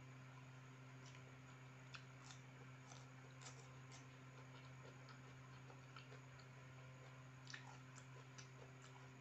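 Faint eating sounds: small irregular clicks and mouth noises from chewing and from fingers picking at fried chicken, over a steady low hum.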